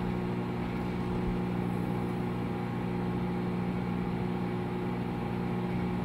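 Danby Designer microwave oven running with a steady low hum, heating a stainless steel knife. There is no crackle or snap of arcing from the metal blade.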